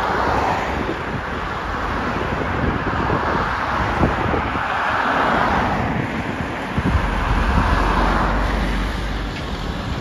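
Road traffic passing close by: cars and vans drive past one after another, then a heavy articulated lorry rumbles past near the end. Wind buffets the microphone throughout.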